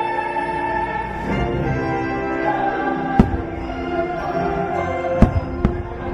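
Orchestral Christmas music with a choir and soaring solo voice playing over the show's loudspeakers, with fireworks bursting: three sharp bangs in the second half, two of them close together.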